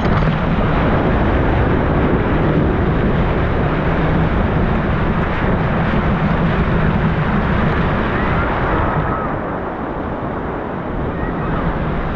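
Ocean surf: a breaking wave's whitewater rushing, with wind buffeting the microphone. The rush is loud and even, and eases a little near the end.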